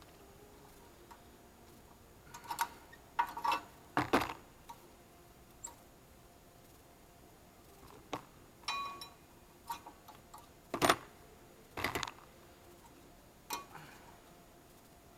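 Scattered metal clicks and clinks, about ten in all with the loudest near the end, as brake pad retaining springs and pads are worked out of a front brake caliper bracket.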